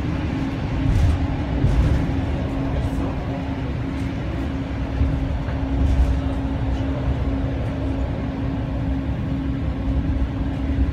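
Moving regional passenger train heard from inside the carriage: a steady low rumble of wheels on the rails, with an even hum under it and a few brief swells in the noise.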